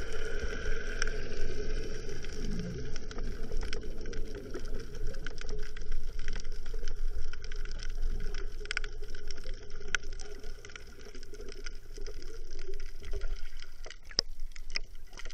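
Muffled underwater noise picked up through a camera housing: a low steady hum and water rumble with scattered sharp clicks and knocks.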